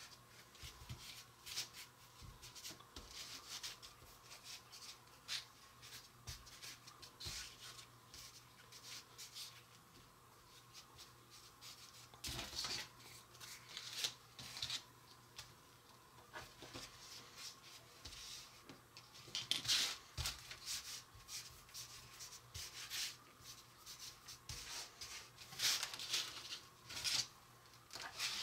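Hands rolling and working soft, floured cookie dough into ropes: faint irregular rubbing and light taps, with a few louder brushing strokes.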